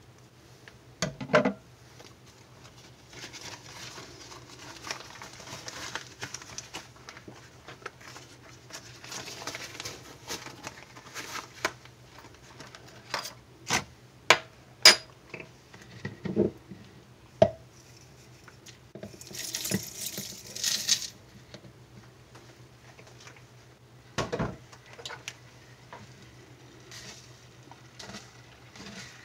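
Plastic measuring jugs and a spoon handled on a countertop: scattered knocks and sharp clinks, a couple of seconds of rustling about twenty seconds in, and a spoon stirring in a plastic jug near the end.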